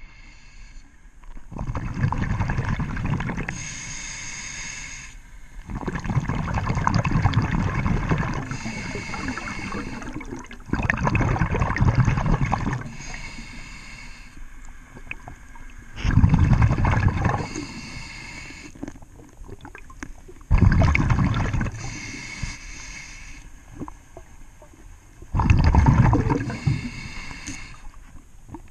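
A scuba diver breathing through a regulator underwater. About every five seconds an exhaled breath leaves as a loud gurgling burst of bubbles, six times in all, and between them comes the thinner hiss of the regulator on each inhale.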